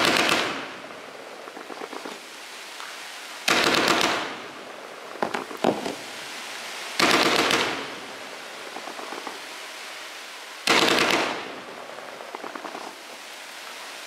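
A 30-shot fan-shaped F2 firework cake firing four volleys about three and a half seconds apart, each a quick rattle of shots that fades into hiss. Fainter crackles come between the volleys.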